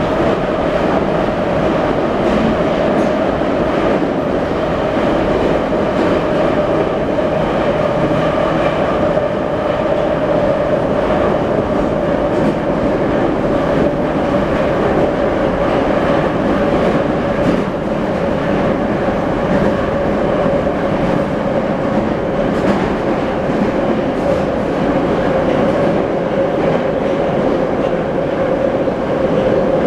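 Moscow metro 81-717.5 car heard from inside while running at speed between stations: a loud, steady rolling and running noise with a constant droning tone that drifts slightly lower in pitch, and faint clicks from the wheels over the rails.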